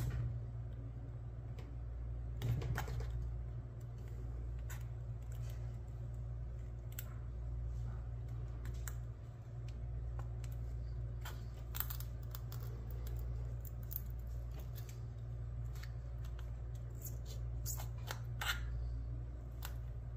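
Scattered light clicks and scrapes of a small hand tool working at the staples holding a case shut, over a steady low hum.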